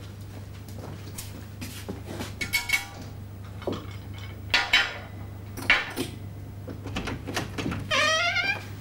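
Dishes and cutlery clinking and rattling on a laid dining table, in a few separate bursts, over a steady low hum. Near the end a woman's voice calls out briefly.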